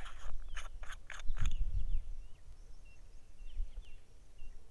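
A quick run of small clicks and scrapes as a screw-on cap is twisted off a clip-on phone camera lens, then faint short high bird chirps.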